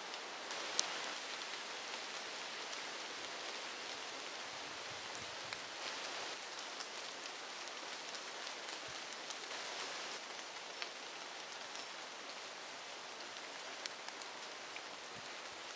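Steady rain falling on foliage, an even hiss dotted with small drop ticks, with one sharper click about a second in.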